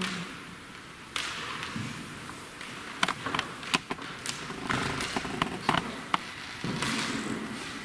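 Scattered light knocks and taps over a soft hiss as people move about and settle: the priest sitting down in his chair and the reader getting ready at the wooden lectern. The knocks come thickest in the middle of the stretch.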